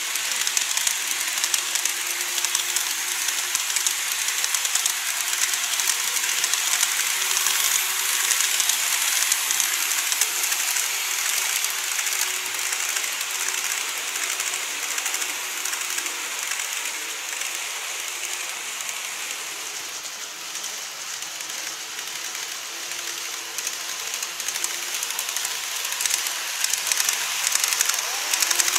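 Model trains (E257 and E233 series) running on plastic viaduct track: a steady fine rattling whir of small wheels and motors with rapid clicking. It grows fainter past the middle and louder again near the end as a train passes close.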